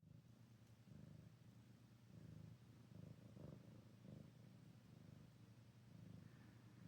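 Domestic cat purring faintly: a low, steady purr that swells and eases about once a second.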